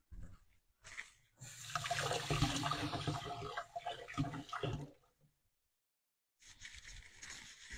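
Water running from a tap as the NutriBullet blender's blade unit is rinsed under it. It comes in two spells: one of about three and a half seconds starting a second and a half in, and a shorter one near the end.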